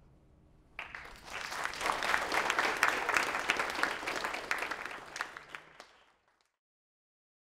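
Audience applauding: a dense patter of many hands clapping starts about a second in, swells, and dies away near the sixth second.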